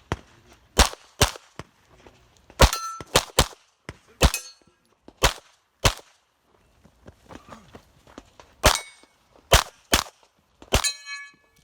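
Rapid 9mm pistol fire, about a dozen shots, mostly in quick pairs with a pause of about two and a half seconds in the middle. Several shots are followed by the ring of hit steel targets, most clearly near the end.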